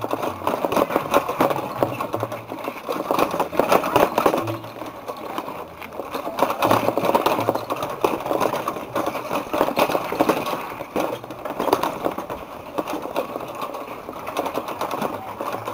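A bicycle rattling and clicking as it rolls slowly over rough ground: a fast, dense mechanical clatter that keeps going.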